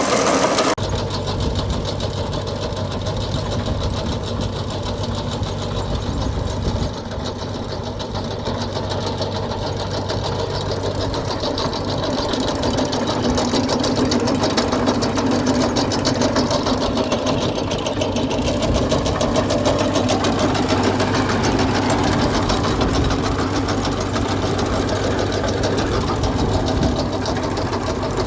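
Engine running steadily with a fast, even mechanical clatter.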